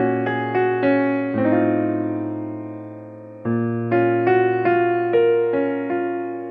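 Background music: a piano playing slow chords with single melody notes between them, each chord fading out before the next is struck.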